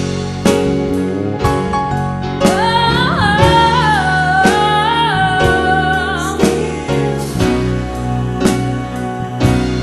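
Music: a slow song with a singer holding long, sliding notes over a steady beat, without clear words.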